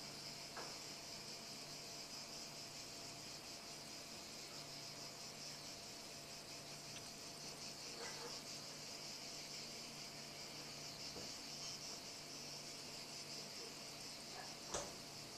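Steady, high-pitched chorus of insects chirring in summer countryside, with one sharp knock near the end.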